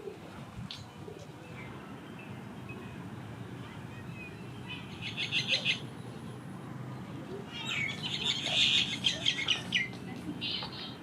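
Birds chirping in bursts of rapid, repeated high notes, once about five seconds in and again for a couple of seconds from about eight seconds, over a steady low background hiss.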